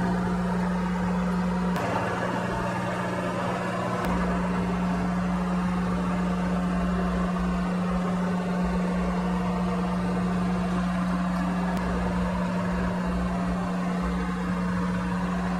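Steady low hum with a fan-like hiss, from electronics-bench equipment, with a few faint clicks; the hum shifts slightly at about two and four seconds in.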